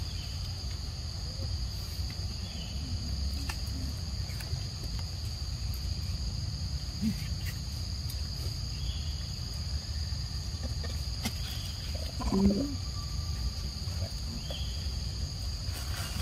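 Insects droning steadily in one high tone over a low rumble, with faint scattered clicks. About twelve seconds in, a short low vocal sound stands out.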